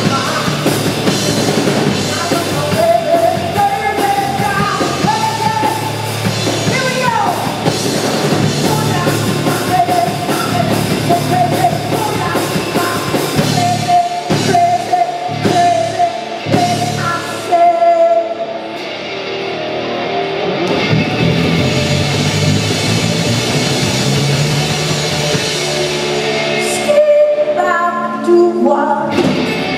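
Live rock band: a woman singing over electric guitar, bass guitar and drums. The cymbals fall away for several seconds past the middle, then the full band comes back.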